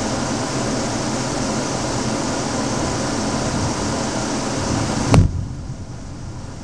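Loud, steady hiss of heavy thunderstorm rain. About five seconds in, a sharp knock cuts it, after which the hiss drops suddenly and is much quieter.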